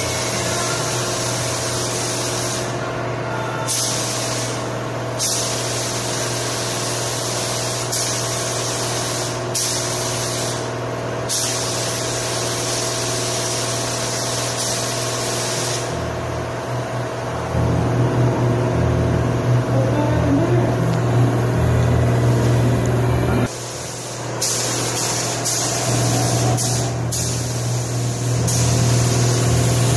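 Gravity-feed paint spray gun hissing with compressed air as it lays on metallic blue base coat. The hiss stops and starts several times as the trigger is let go and pulled again, over a steady low machine hum that grows louder past the middle.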